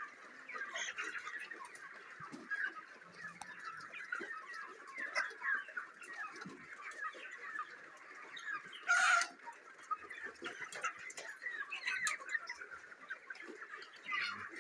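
A flock of white broiler chickens peeping and clucking in a continuous, busy chatter, with one louder call about nine seconds in.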